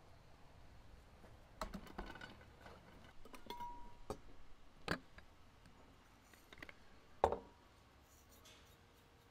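Glass jars, a glass teapot and a metal tea infuser handled on a wooden table: scattered light clinks and knocks of glass and metal, the sharpest about seven seconds in, with one brief ringing tone near the middle.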